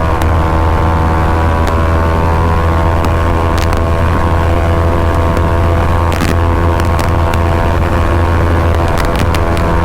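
Bajaj Pulsar NS200's single-cylinder engine through an aftermarket Akrapovic exhaust, running at a steady high rpm under way. The pitch holds level, with a few short sharp clicks over it.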